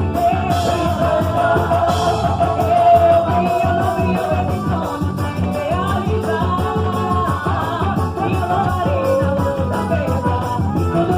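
Festa junina quadrilha song: a sung melody with long held notes over a steady band beat.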